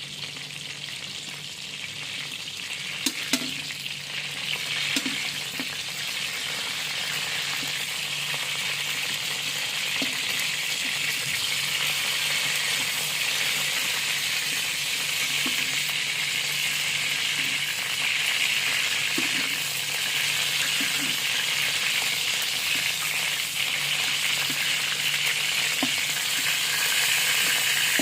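Chicken thighs frying in hot oil, a steady sizzle that grows a little louder over the first several seconds. A few light knocks sound in the first five seconds.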